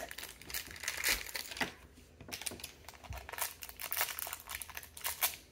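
Small shiny blind-bag wrapper crinkling and crackling in irregular bursts as it is handled and worked open by hand, with a quieter spell about two seconds in.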